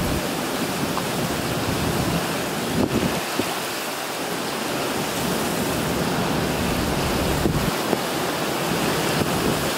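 Hurricane wind and heavy rain: a steady, dense hiss of driving rain and wind, with low wind buffeting on the microphone that comes and goes in gusts.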